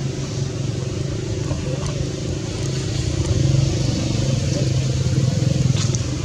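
A steady low hum of a running engine, with a high hiss above it and a few faint clicks near the end.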